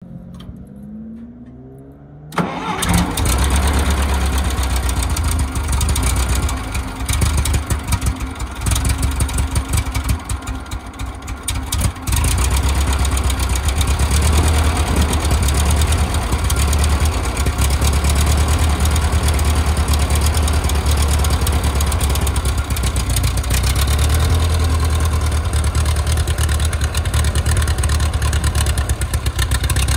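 Ferguson TO-30 tractor's four-cylinder engine cranked by the starter and catching about two seconds in. It runs unevenly with surges for several seconds, then settles into a steady run.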